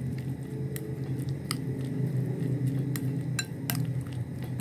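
A spoon stirring a mayonnaise-dressed salad of shredded cabbage, carrot and corn in a glass bowl, clinking against the glass now and then. The clinks come at uneven intervals over a steady low hum.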